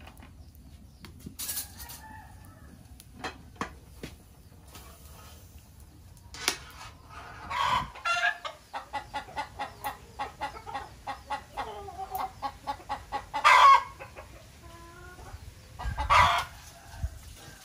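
Chickens clucking: a long run of quick clucks, about five a second, broken by a few louder calls.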